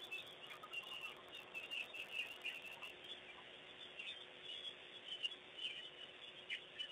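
A flock of small birds chirping and twittering, densely for the first three seconds, then thinning to scattered calls. A faint steady hum runs underneath.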